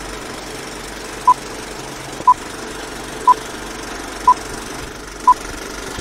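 Film countdown leader: a short, high beep once a second, five in all, over a steady hiss.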